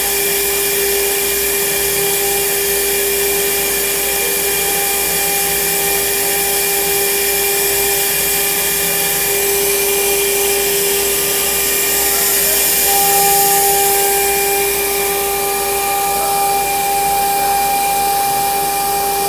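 CNC router spindle running with a steady whine over the hiss of its dust-extraction vacuum; a second, higher whine joins about two-thirds of the way through.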